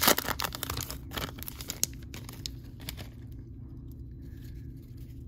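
A trading-card pack wrapper being torn open and crinkled, a dense run of crackles for about the first three seconds that then thins out to quieter handling.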